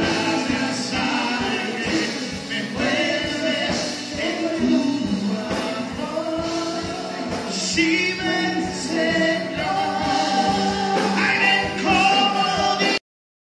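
Live church worship band performing a song: a lead singer and backing voices over keyboard, guitars and a drum kit keeping a steady beat. The music cuts off abruptly near the end.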